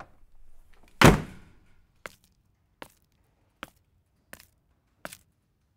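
A heavy thud about a second in, then five sharp knocks, evenly spaced a little under a second apart.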